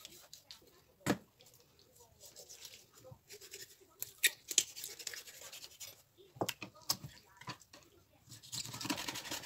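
Large kitchen knife cutting up a raw whole chicken on a wooden cutting board: rasping, scraping strokes through skin and joints, with several sharp knocks as the blade meets the board.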